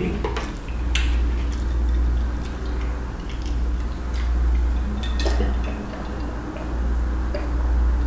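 Close-up mouth sounds of eating: chewing with scattered sharp clicks, then drinking from a glass jar, over a steady low hum that swells and fades.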